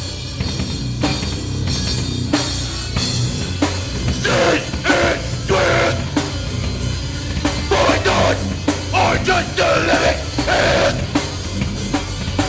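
A live rock band playing loud, with the drum kit keeping a steady beat under the rest of the band. About four seconds in, the band gets busier and louder.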